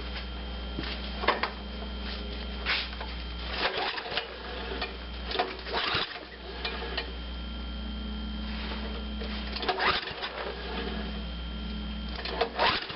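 MTD snow blower engine being cranked over repeatedly without firing, in a series of short mechanical strokes over a steady drone. It won't start because fuel isn't reaching the carburetor, which the mechanic puts down to a clogged needle valve.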